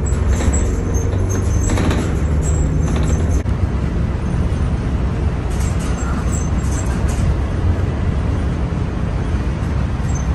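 City bus running: a steady low engine and road rumble, with a few faint rattles and clicks over it.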